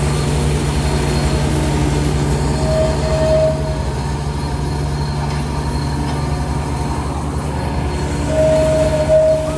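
Heavy construction machinery running steadily with a deep engine drone, with a brief high squeal about three seconds in and another near the end.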